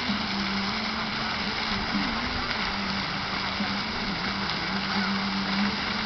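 Steady hiss of a pond's spray fountain falling back onto the water, with a low steady hum under it.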